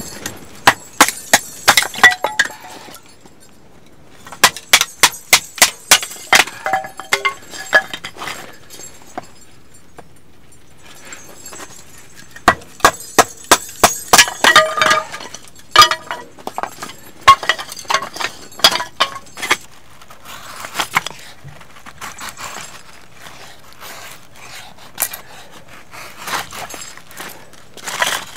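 Knife being batoned through firewood: a wooden baton knocks on the knife's spine in bursts of sharp strikes, about two a second, splitting the log into kindling. Toward the end come quieter, scattered scrapes of the knife shaving the wood.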